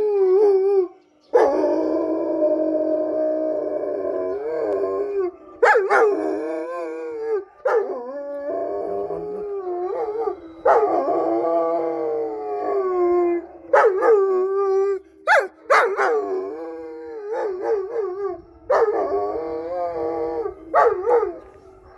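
Several East European Shepherd dogs howling together in long, wavering howls that rise and fall, broken by short pauses and a few brief sharp cries. The howling is set off by police sirens.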